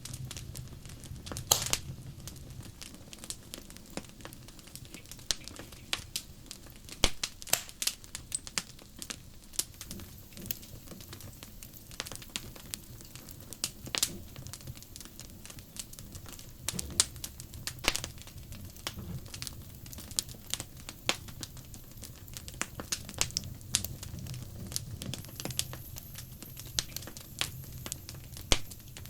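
Wood fire crackling, with irregular sharp pops and snaps over a low steady hum.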